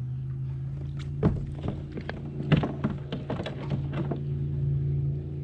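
Irregular knocks and thunks, about a dozen close together between one and four and a half seconds in, from gear and rod handling aboard a fishing kayak during the fight with a hooked bass. A steady low hum runs underneath.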